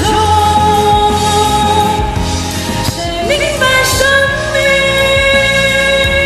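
A woman singing a pop song over a karaoke backing track, holding one long note, then after a short break a second long note with vibrato.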